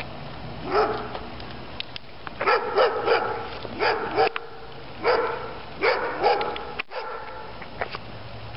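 A dog barking, about nine short barks in quick clusters, strongest between about one and six and a half seconds in.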